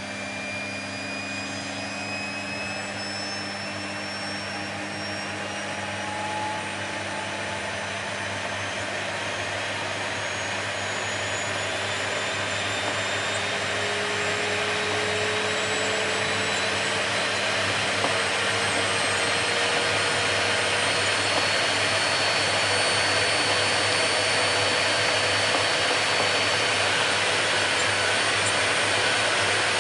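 Vacuum cleaner motor running continuously, a dense rushing noise with a motor whine that slowly rises in pitch as it gradually gets louder.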